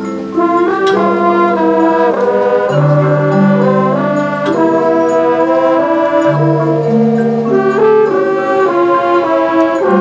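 High school marching band playing: the brass sound long held chords over sustained low-brass notes that shift every second or two, with a firm new entry about a third of a second in.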